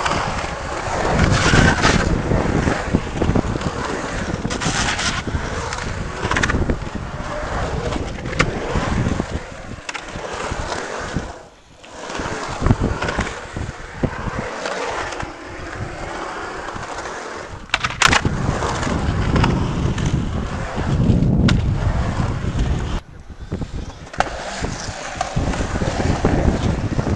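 Skateboard riding in a skatepark: urethane wheels rolling on concrete with a steady rumble that swells and fades as the skater carves, broken by sharp clacks and scrapes of trucks and deck on the coping, the loudest about two-thirds of the way through.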